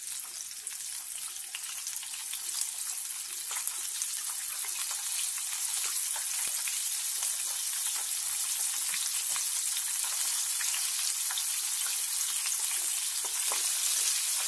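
Flour-coated chicken pieces deep-frying in hot oil in a kadai: a steady sizzling hiss with scattered crackles, growing louder over the first few seconds.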